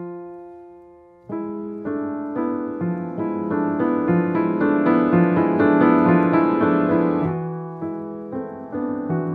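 Piano playing the song's instrumental introduction. A chord rings out and fades, then from about a second in, chords and notes are struck about twice a second, swelling louder through the middle and easing off near the end.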